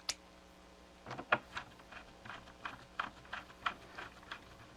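A run of small, irregular hard clicks and taps, about two or three a second from a second in, like small parts such as screws being handled and set down on a hard surface.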